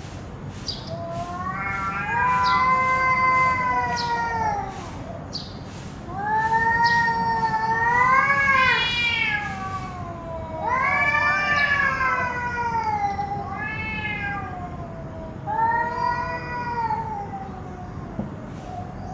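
Two domestic cats caterwauling at each other in an aggressive standoff: five long, drawn-out yowls that rise and fall in pitch, the longest about four seconds.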